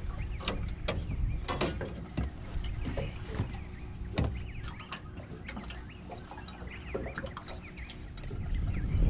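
Wind buffeting the microphone, with scattered sharp clicks and knocks from the tackle and aluminium boat while a hooked fish is wound in, and birds chirping in the background.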